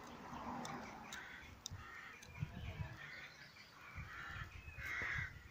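Crows cawing, a string of separate calls about once a second, with soft footsteps on the ground below them.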